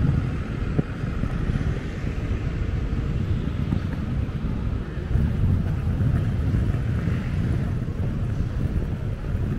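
City street ambience: a low, fluctuating rumble of traffic with wind buffeting the microphone.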